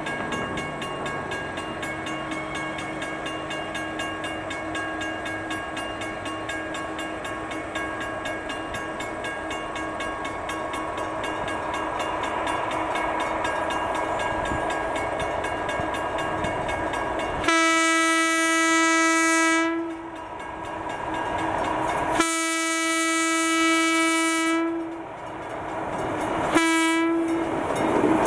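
Small diesel switcher locomotive running as it approaches, its engine drone growing louder. Its air horn then sounds two long blasts, a short one, and starts a fourth long one, the long-long-short-long pattern blown for a grade crossing.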